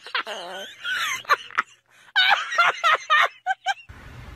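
A person laughing hard in high-pitched, uneven bursts, ending in a few short 'ha' bursts. Near the end it cuts to a faint low room hum.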